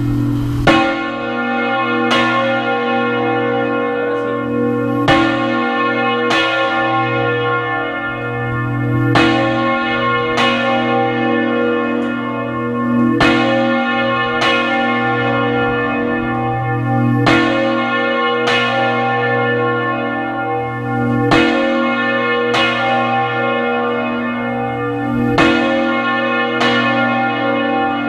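A large church bell of Almudena Cathedral swinging full circle in the Spanish volteo style. Its clapper strikes in pairs a little over a second apart, about one pair every four seconds, and a deep hum rings on between the strokes.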